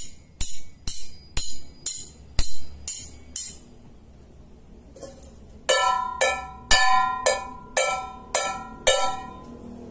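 About eight sharp strikes at roughly two a second, then after a short pause a metal pan beaten about eight times in quick succession, each blow ringing with a clanging tone, made as a deliberate noise.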